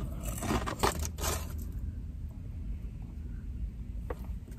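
Paper fast-food bags and wrappers being handled: light rustling with a few sharp clicks and taps, about a second in and again near the end, over a steady low hum.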